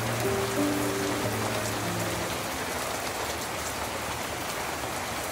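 Steady rain falling, a continuous even hiss with a few sharper drops ticking now and then. Soft held music notes fade out about two seconds in.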